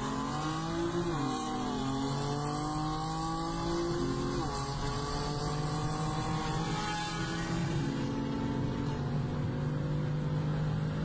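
Car engine pulling hard at high speed, heard from inside the cabin over road and wind noise. Its pitch climbs slowly and drops at gear changes about one second and four and a half seconds in.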